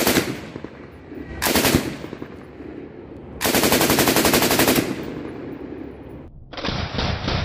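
M249 light machine gun firing .223 rounds in three bursts of automatic fire, the last and longest lasting about a second and a half. About a second before the end, the sound changes abruptly to a duller, rapid rattle.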